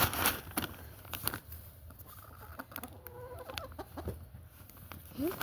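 Domestic chickens clucking softly, wavering calls in the middle and a short rising call near the end, with a few scattered clicks and knocks.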